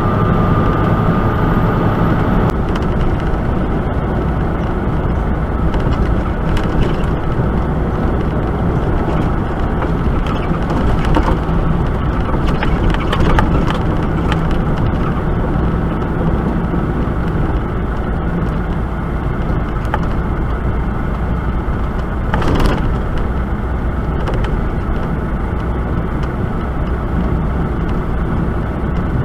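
Semi-truck driving at highway speed, heard from inside the cab: a steady engine drone under road and tyre noise. A single sharp knock about three-quarters of the way through.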